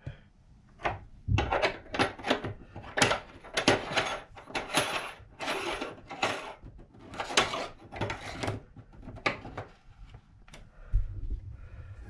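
Hand working a rubber no-caulk gasket into a shower pan's brass drain over a 1.5-inch pipe: a quick, irregular run of scraping and rubbing strokes that eases off near the end.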